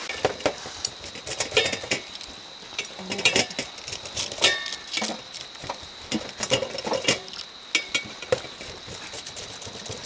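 A metal rolling pizza cutter scraping and knocking against a stainless pizza-grill pan and aluminium foil as a pizza is sliced, making an irregular run of clinks and scrapes.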